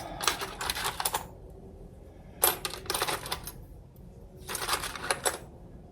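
Small metal parts clicking and rattling against each other as they are handled, in three short bursts of clatter.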